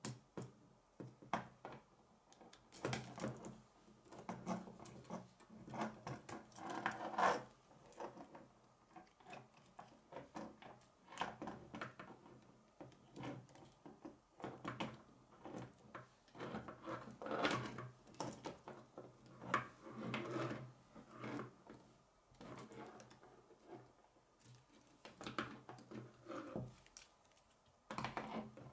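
K'nex plastic rods, connectors and gear pieces clicking and rattling as they are snapped together and handled, with irregular clicks and rubbing throughout.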